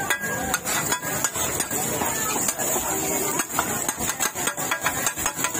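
Metal spatulas scraping and clacking on a large flat steel griddle pan as a fried shellfish omelette is turned, in a quick, uneven run of knocks.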